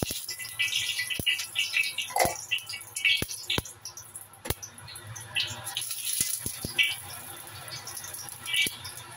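Cooking oil sizzling in a hot wok, with a steady hiss and irregular crackles and sharp clicks as the oil is swirled around the pan.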